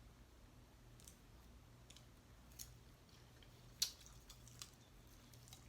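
Near silence with a few faint, sharp clicks of eating, the loudest about four seconds in, over a low steady room hum.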